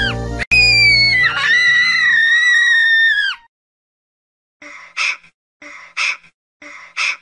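A cartoon puppy's high-pitched scream, held and dropping off at the end, breaking twice, over background music; it stops about three and a half seconds in. After a short silence come three short breathy cartoon snores, about a second apart.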